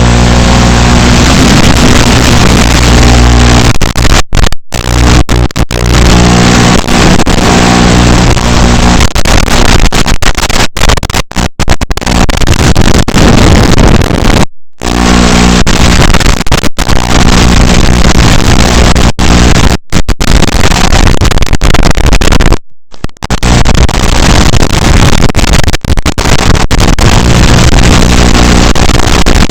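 Loud, distorted rushing noise of a tiny FPV whoop drone's motors and wind in flight, cutting out suddenly for a moment several times.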